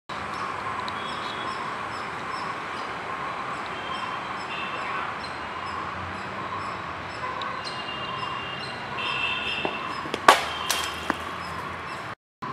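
Outdoor park ambience: a steady background hum with birds chirping on and off. About ten seconds in there is one loud sharp knock, followed by a couple of lighter clicks.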